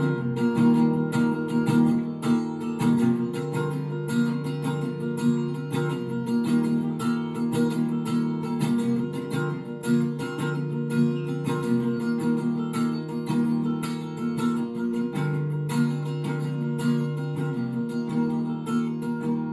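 Acoustic guitar with a capo, strummed chords.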